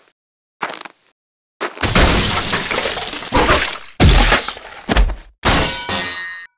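Animated fight sound effects: a few short swishes, then from about two seconds in a run of about five loud crashes and breaking, shattering impacts. The last crash has a ringing, metallic tail.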